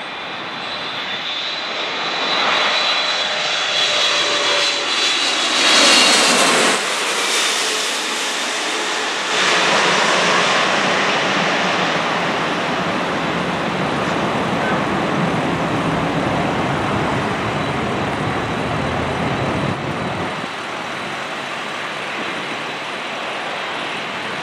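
Boeing 777-300ER's twin GE90 turbofans passing low overhead on final approach: a high whine that falls in pitch, loudest about six seconds in as the jet goes over, then a broad, steady roar that eases off as it moves away toward touchdown.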